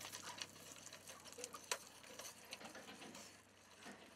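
Faint scattered clicks and light handling noise from a pipe fitting being refitted and tightened by hand on a hot water heater tank, with one sharper click a little under two seconds in, over a light hiss.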